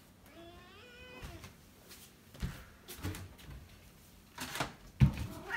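Domestic cat meowing while waiting to be fed: one rising meow about half a second in, lasting nearly a second, and another starting just before the end. A few soft knocks in between and a sharper thump near the end.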